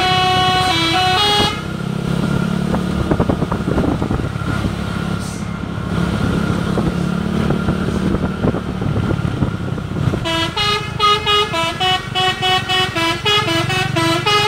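Telolet multi-tone musical horn playing a stepping melody, which stops about a second and a half in. A heavy vehicle's engine runs underneath, and the horn melody starts again at about ten seconds and plays to the end.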